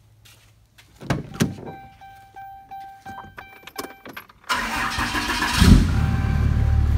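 A couple of thumps, then a dashboard warning chime rings repeatedly. At about 4.5 s the 6.7 Cummins turbo-diesel cranks, catches about a second later and settles into a steady idle, heard from inside the cab. The engine has newly installed head studs and freshly adjusted valves, and the chime carries on over the idle.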